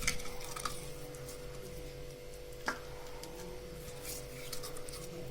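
Faint rubbing and a few light knocks as chopped ginger is crushed, with one sharper click about two and a half seconds in, over a faint steady hum.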